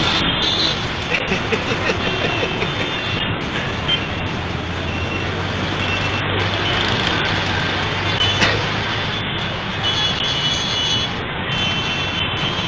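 Steady road traffic noise: vehicle and motorcycle engines running, with a low engine drone for a few seconds in the middle.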